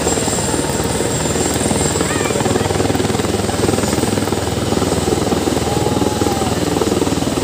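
Helicopter running on the ground: a steady, loud turbine whine over the fast, even beat of the spinning rotor.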